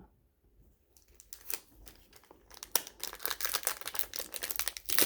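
Sealed baseball card pack wrapper being torn open and crinkled: a dense run of sharp crackles starting about a second in.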